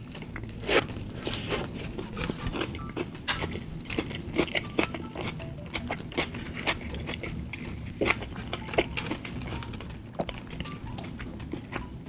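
Close-miked eating of McDonald's food: a loud bite a little under a second in, then chewing with many short crunches and clicks.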